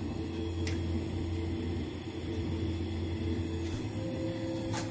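A steady mechanical hum with a few fixed low tones, and two faint clicks, one about a second in and one near the end.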